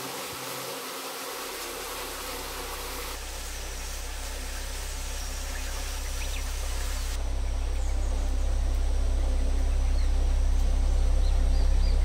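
A low ambient music drone fades in about a second in and keeps swelling, laid over outdoor background hiss. A few faint high chirps come near the end.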